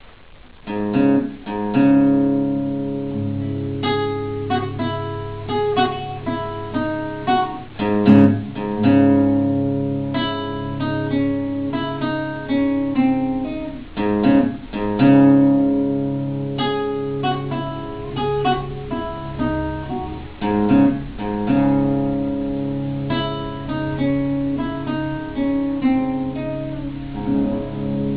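Acoustic guitar and a second long-necked plucked string instrument playing an instrumental tune together. A melody of quick plucked notes runs over held low notes, starting just after the opening.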